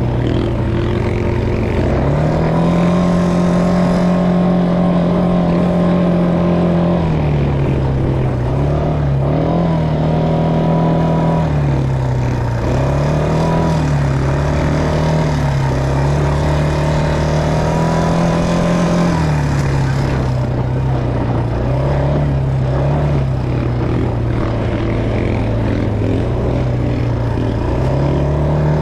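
Quad bike (ATV) engine running under way, its pitch rising and falling as the throttle is opened and eased, with a few quick up-and-down wavers in the middle.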